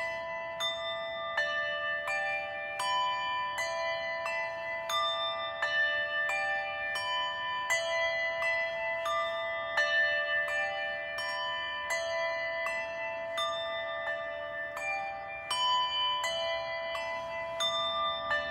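Bells of several different pitches rung in turn, one strike about every 0.7 seconds, each note ringing on under the next. A memorial toll, each ring standing for a thousand Covid deaths.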